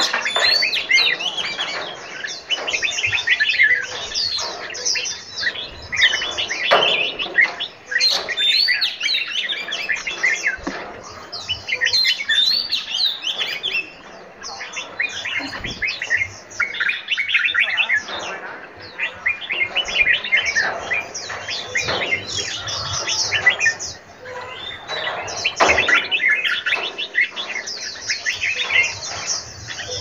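Many aviary birds chirping and singing at once, a dense chorus of quick, high calls overlapping without a break, swelling and dipping with a few brief lulls.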